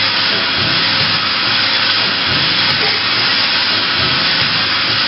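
Makino A81 horizontal machining center running, giving off a loud, steady hiss with a faint uneven low rumble beneath it.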